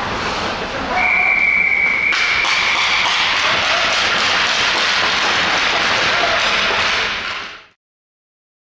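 A whistle blown as one long steady blast for about two seconds, over a dense, even patter of taps and knocks in the rink. The sound cuts off abruptly near the end.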